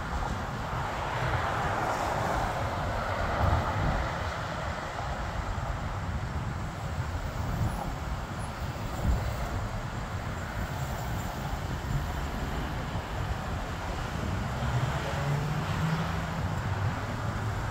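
Business jet engines running at a distance, a steady rushing hiss, with wind rumbling on the microphone.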